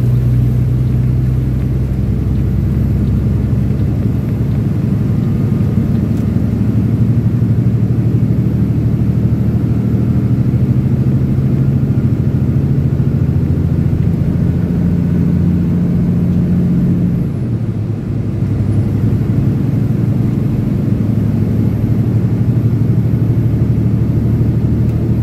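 Semi truck's engine droning steadily, with road noise, heard from inside the cab while cruising on the highway. The engine note dips briefly about two-thirds of the way through, then settles again.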